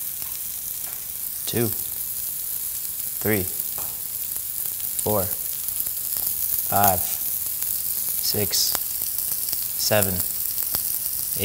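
Pork sausage patties, scrambled eggs and a banana sizzling steadily on a hot electric griddle.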